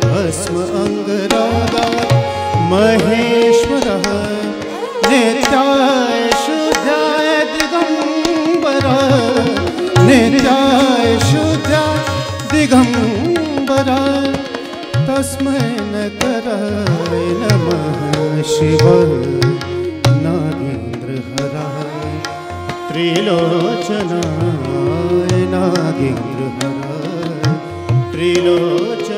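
Hindustani classical Kathak accompaniment: tabla playing steadily under a sung melody that glides between notes.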